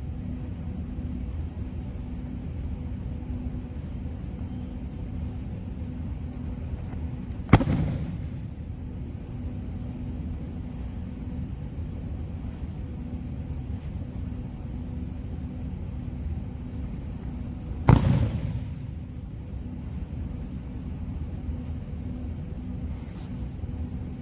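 Two judo breakfalls, the thrown partner's body and slapping arm landing on tatami mats: two sharp smacks about ten seconds apart, each with a short echo, over a steady low hum.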